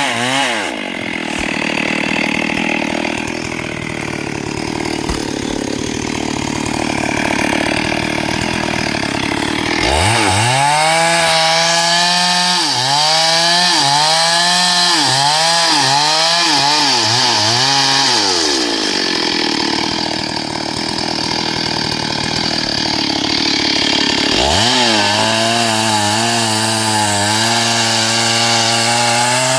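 STIHL MS382 two-stroke chainsaw cutting through hardwood logs. It runs loud throughout: two long stretches of chain noise in the wood alternate with spells where the engine pitch rises and wavers as the saw revs, and near the end it holds a steady high speed.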